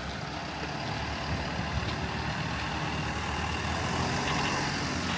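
Street traffic with a heavy vehicle's engine running, over a steady wash of road noise that grows slowly louder.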